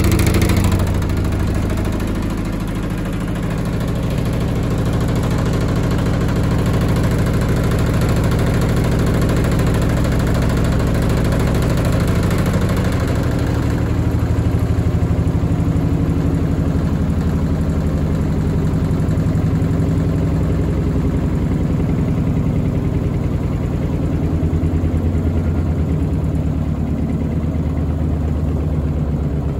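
Washing machine running, its motor and drum making a loud, steady low rumble with a fast shudder.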